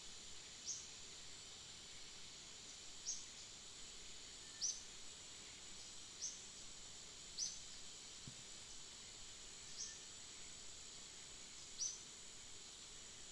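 Quiet outdoor ambience of a steady high-pitched insect drone, with a short high chirp repeating every couple of seconds, seven times in all.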